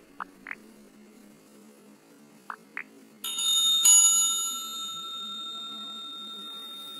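Sound effects for a like-and-subscribe button animation: two pairs of short clicks, then a bell ringing about three seconds in. The bell is struck again just before four seconds and rings out slowly.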